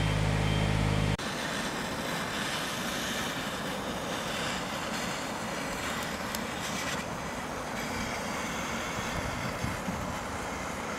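An engine running steadily, which cuts off abruptly about a second in. A steady, even rushing noise follows.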